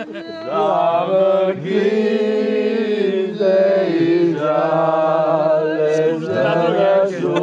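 A group of voices singing unaccompanied in slow, long-held notes, several voices together in harmony, with short breaths between phrases.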